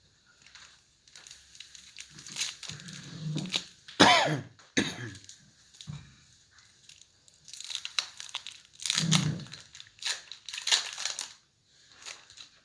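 Foil wrapper of a baseball card pack crinkling and tearing open in several irregular bursts, the sharpest about four seconds in.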